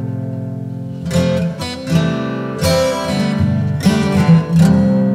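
Background music: acoustic guitar chords struck roughly once a second, each ringing and fading.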